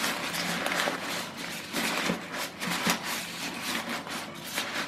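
Fresh Eucalyptus pulverulenta (silver-leaf mountain gum) leaves rustling with a scratchy, irregular crackle as hands cram and press them down into a stainless steel pressure cooker pot.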